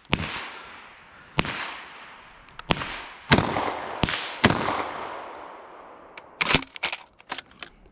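DP-12 12-gauge double-barrel pump shotgun firing mini buckshot shells: about five shots spaced roughly a second apart, each followed by a long fading echo. A quick cluster of shorter clicks and clacks comes near the end.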